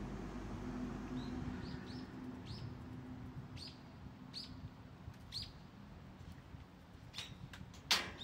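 A small bird chirping: short calls that drop slightly in pitch, repeated roughly once every half second to a second. Near the end come a few sharp clicks and one loud knock.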